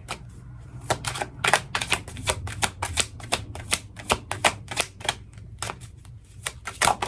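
A deck of tarot cards being shuffled by hand: an uneven run of crisp card clicks, about four a second.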